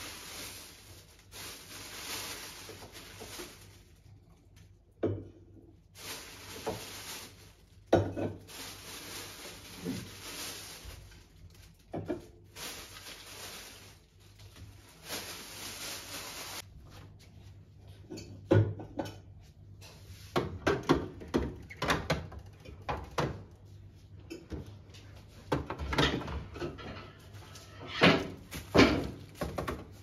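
Kitchen handling sounds. In the first half come several stretches of rustling noise, a few seconds each. Through the second half there is a run of short knocks and clunks as things are put down and cupboard and refrigerator doors are worked; the loudest clunks come near the end.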